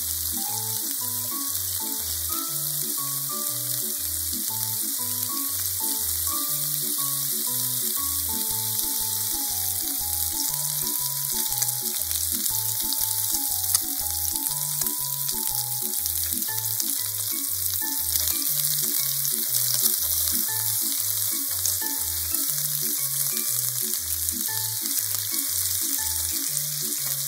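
Pork-wrapped rice balls sizzling steadily in oil in a frying pan as they brown. Background music with a bouncing bass line and a light melody plays over the sizzle.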